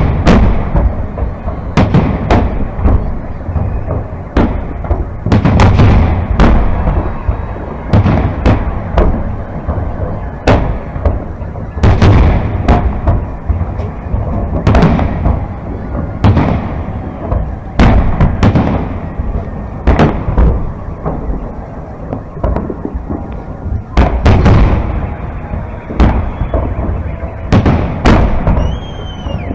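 Aerial fireworks shells bursting in quick succession, a sharp boom every second or two, each echoing, with a continuous low rumble between them.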